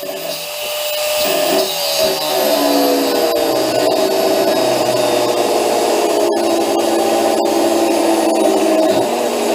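Angle grinder spinning up with a rising whine, then cutting steadily through a seized body-mount bolt whose nut has been rounded off.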